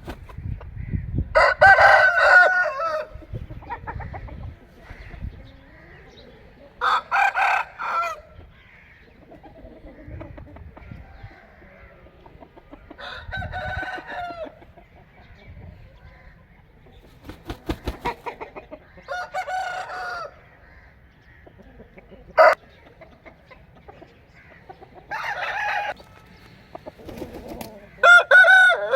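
Aseel roosters crowing, about six crows a few seconds apart, with a single sharp click a little past the middle.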